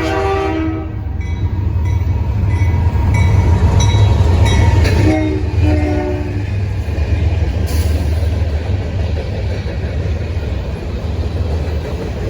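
Diesel locomotive horn chord cutting off about a second in, then a train rumbling past with two short horn toots about five seconds in.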